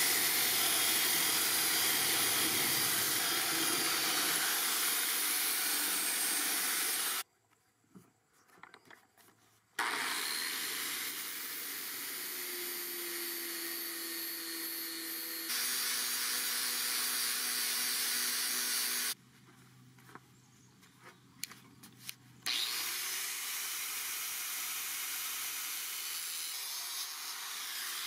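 Power tools working a steel sword blade, in a run of edited cuts: a belt sander, then an angle grinder with a sanding disc grinding the steel. The sound cuts off abruptly twice, into two short, near-quiet gaps.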